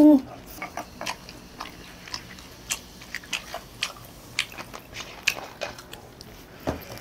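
Close-up eating sounds: biting and chewing a slice of cheese pizza, with many short crisp crunches and mouth clicks scattered throughout. A brief hummed "mm" right at the start and a soft thump near the end.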